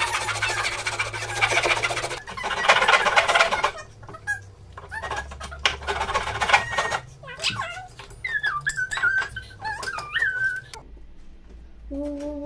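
Fine-toothed blade sawing back and forth in a bubinga dovetail joint for the first few seconds, followed by scattered knocks of tools on the bench. Later come high squeaky whistle-like sliding sounds, and near the end a child hums.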